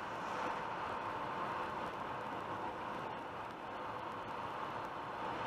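Steady road and tyre noise of a car cruising at about 100 km/h on a highway, heard from inside the cabin.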